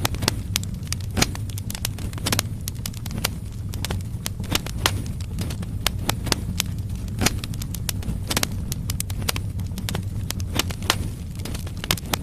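Firewood logs burning in a fireplace, crackling and popping with many sharp, irregular snaps, several a second, over a steady low rumble of the fire.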